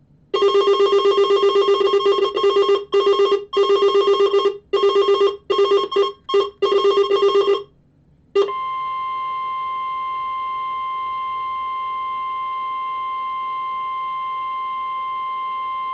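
A harsh buzzing tone switching on and off in uneven bursts for about seven seconds. After a short gap comes the NOAA Weather Radio 1050 Hz warning alarm, one steady high tone held evenly to the end: the signal that automatically sets off weather alert receivers.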